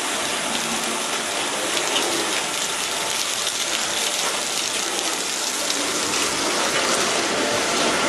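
Water spraying steadily from the jets of an automatic train washing plant, a continuous even rush.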